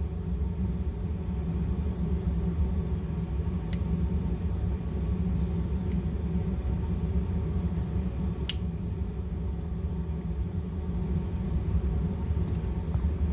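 Steady low machine hum and rumble, like a fan or air-conditioning unit running, with two light sharp clicks about four seconds and eight and a half seconds in.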